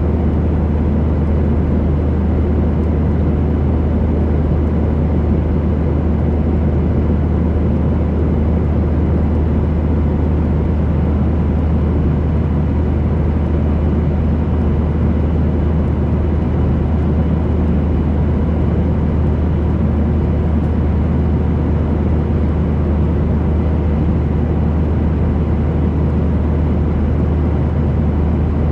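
Airplane engine and airflow noise heard inside the passenger cabin in flight: a loud, unbroken rumble, heaviest in the low end, with a few faint steady tones above it.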